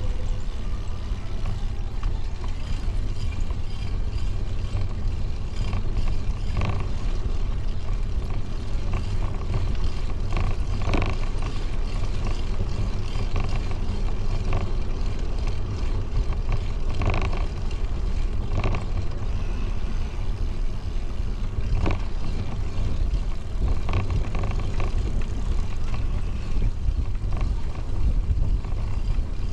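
Wind buffeting the microphone during a bicycle ride: a steady low rumble, with a few short knocks scattered through.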